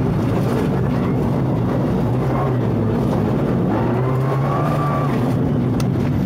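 Rally car engine heard from inside the cabin, its pitch rising and falling as the driver works the throttle through the stage, over steady road noise, with a few sharp knocks near the end.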